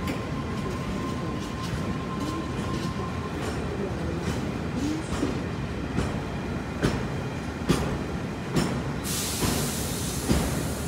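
Empty flat wagons of a freight train rolling past at speed: a steady rumble, with sharp wheel clacks over rail joints about once a second in the second half and a brighter hiss joining near the end.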